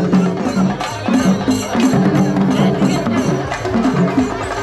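Shinkari melam ensemble playing: chenda drums struck in a fast, even beat, with a melody moving in steps in a low register over them.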